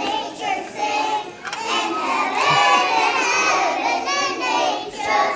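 A group of young children singing a song together, many voices at once.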